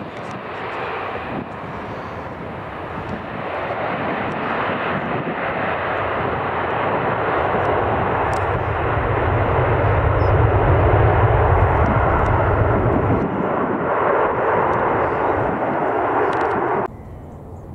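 Ryanair Boeing 737's jet engines on the landing roll: a loud roar that builds over several seconds, peaks with a deep rumble about two-thirds of the way through, then cuts off suddenly near the end.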